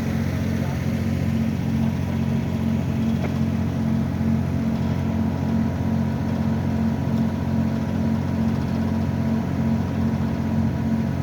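An engine idling steadily: an even, low hum that does not change.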